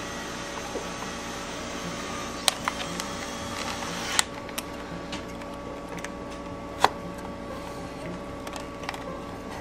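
Scattered small clicks and taps of hands handling wires, a screw and plastic panel parts inside an inverter generator's open control-panel compartment, three of them sharper than the rest, over a steady background hum.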